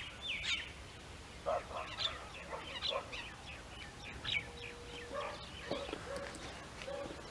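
Several birds calling at once: a run of short, quick chirps and squawks that overlap, many sliding down in pitch, with a brief steady whistle about five seconds in.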